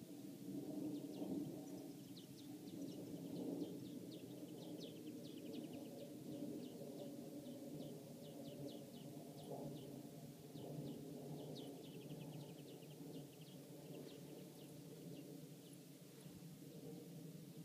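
Small birds chirping outdoors, short high chirps often in quick runs, over a faint steady low rumble of background noise.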